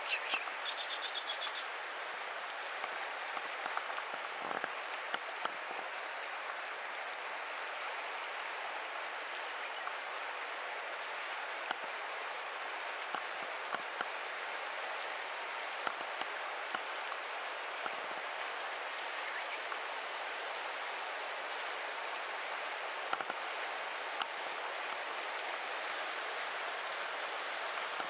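Steady rush of a stream's current running over shallow riffles, with a few scattered light clicks.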